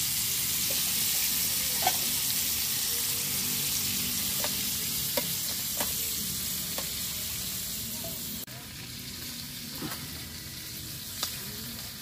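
Food sizzling as it fries in a pan, with a few sharp clicks scattered through. The sizzle drops suddenly in level about eight and a half seconds in.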